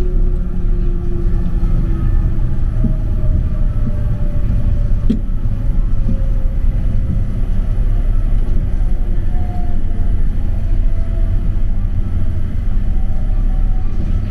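Mitsubishi Crystal Mover C810A rubber-tyred light rail car running along its guideway: a steady low rumble with a motor whine that glides in pitch. There is a single knock about five seconds in.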